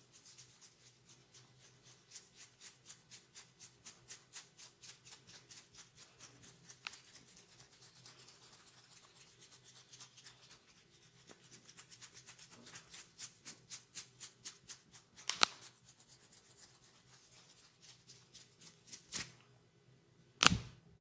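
Hands striking rhythmically in a massage, quick tapping or chopping strokes at about three to four a second. A few louder sharp strikes stand out in the second half.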